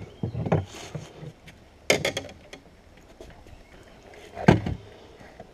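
A landing net holding a small fish knocking and bumping against a metal boat's hull and wooden seat as it is brought aboard. There are a few short thumps in the first second, a cluster of sharp clicks about two seconds in, and the loudest thump about four and a half seconds in.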